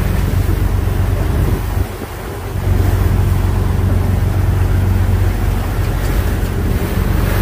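Fishing boat's engine running steadily at trolling speed, a low drone under wind and the rush of the wake water; the level dips briefly about two seconds in.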